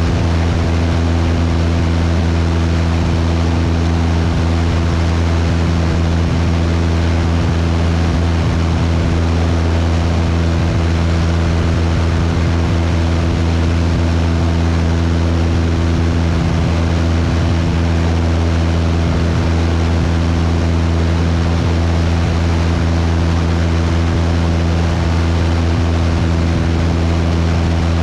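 Cessna 172's piston engine and propeller droning steadily in cruise flight, with a constant rush of airflow over it.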